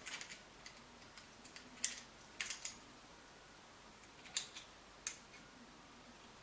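Scattered light clicks and taps of small metal parts of an interior door handle's mechanism being handled while its thrust washer is fitted, about half a dozen, the sharpest about two seconds in.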